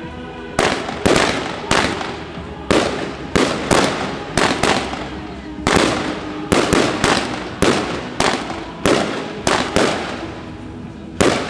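Fireworks going off in quick succession: a string of sharp aerial bangs, one or two a second, each trailing off before the next.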